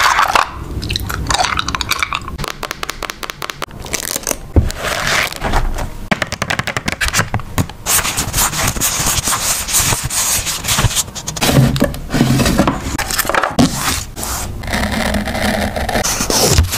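Paper and stickers being handled for a journal layout: rubbing and scraping of paper with many small crackles and clicks.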